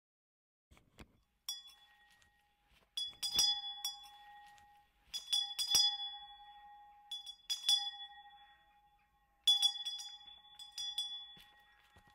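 Small hand bell tolled in about five clusters of strokes, a couple of seconds apart, each cluster ringing on and fading before the next.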